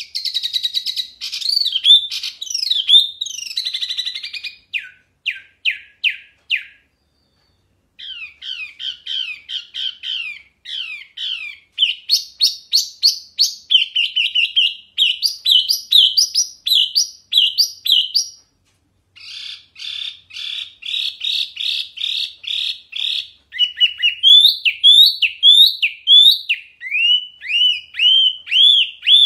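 Caged wambi mini songbird singing loud and clear: long runs of quick, repeated, down-slurred whistled notes, several a second, broken by two short pauses.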